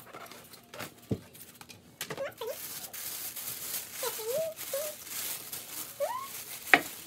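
Tissue paper rustling and crinkling as it is pulled out of a gift box, starting about two seconds in. Over it come several short rising-and-falling vocal cries, and a sharp click sounds near the end.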